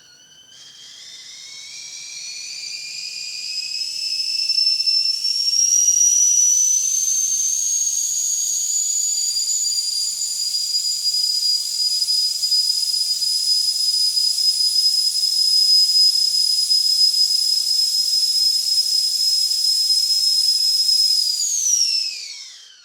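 Household whistling kettle at the boil, whistling over a steam hiss. The whistle starts thin and climbs in pitch and loudness over the first five seconds or so, then holds a steady high whistle. About a second before the end it drops quickly in pitch and dies away.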